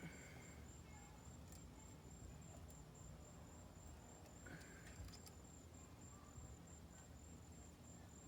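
Near silence: faint room tone with a steady, evenly pulsing high-pitched tone and a few soft clicks.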